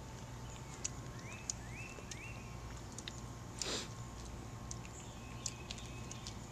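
Quiet backyard ambience: a steady low hum with scattered faint clicks, three faint rising chirps a little over a second in, and a brief rustle-like burst a little after the middle.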